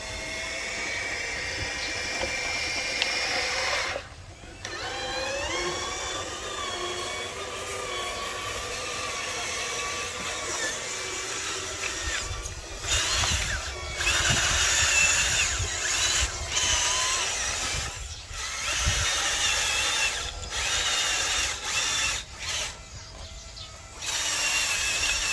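Small electric motors of a radio-controlled construction toy whining as they run, the pitch gliding up and down as they speed up and slow down, stopping briefly a few times and starting again.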